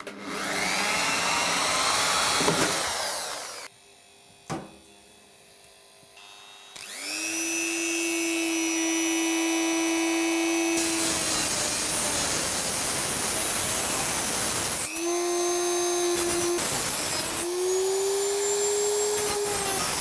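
A power drill bores into the sheet-metal computer chassis for about four seconds. About seven seconds in, a rotary tool spins up to a steady high whine as its cut-off wheel grinds through sheet steel. It stops briefly twice and starts up again.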